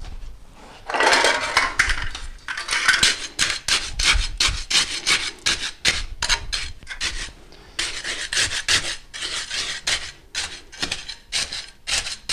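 Steel hand trowel scraping and smoothing wet concrete in quick repeated strokes, starting about a second in, with a short pause past the middle.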